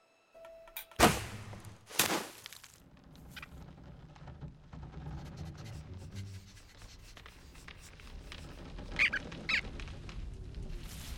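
Cartoon sound effects: two sharp impacts about a second apart, then low rustling, and two short high squeaks close together near the end.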